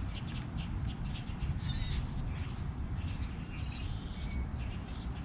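Small animals chirping: a quick run of short high chirps, about five a second, then scattered chirps and calls, over a low rumble.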